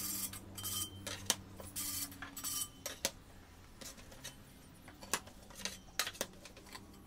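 Cut ceramic tile pieces clinking and knocking against each other as they are handled and set down in a pile, a dozen or so irregular sharp clicks, with rubbing and scraping of tile on tile between them.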